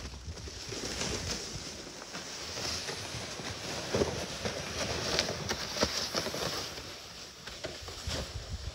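Snowshoe footsteps crunching in snow and loaded sleds dragging over the snow, an irregular run of crunches and scrapes.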